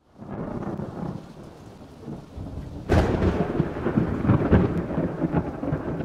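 Thunder sound effect: a low rumble building, then a sharp crack about three seconds in, followed by heavy rolling rumble.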